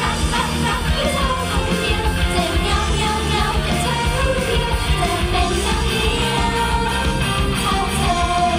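Live idol-pop song over a stage PA: several young women singing together into handheld microphones over loud pop backing music with a steady beat.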